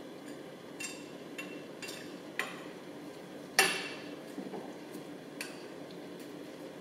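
A spoon stirring food in a heavy enamelled Dutch oven, clinking and knocking against the pot about seven times, the loudest knock about three and a half seconds in, over a low steady hum.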